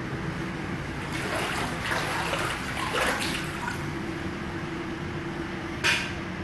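Water splashing and sloshing on a flooded indoor floor, coming and going unevenly over a steady low hum, with a brief splash near the end.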